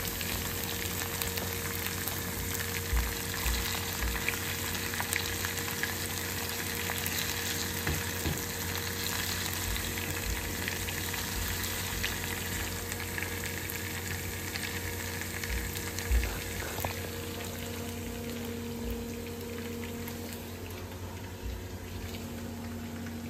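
Chopped green chillies and aromatics sizzling and crackling steadily in hot oil in a nonstick frying pan, stirred with a silicone spatula, a few soft knocks among them. A steady low hum runs underneath.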